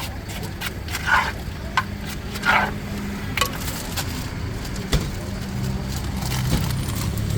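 Food-stall clatter: irregular sharp clicks and knocks and a couple of short rustles, over a steady low hum of street traffic.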